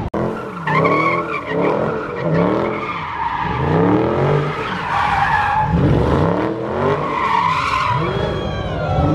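Mopar muscle cars doing donuts. Engines rev up and down over and over, about once a second, while the tires squeal and skid, with the loudest squeals about a second in, around five seconds, and near the end.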